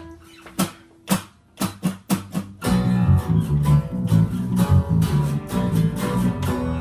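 A band's guitar and bass starting a song: a few sharp, spaced hits at first, then about two and a half seconds in the guitar and bass play a riff together, with the low bass notes stepping in pitch.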